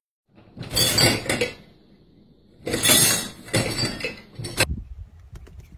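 Dishwasher racks and the dishes in them rattling and clinking as a goat clambers about on the wire racks. There are two spells of clatter, one about a second in and a longer one from about three seconds in.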